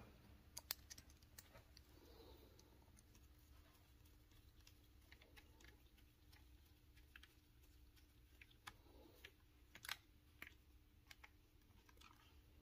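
Near silence with faint, scattered small clicks and ticks of a screwdriver on a small screw as it is driven into the servo horn of an RC truck's throttle linkage; the clearest clicks come about ten seconds in.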